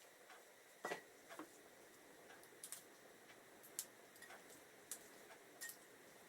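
Faint, irregular light clicks and taps, about seven of them, the loudest about a second in, as the covers are worked off a motorcycle's front brake pads by hand.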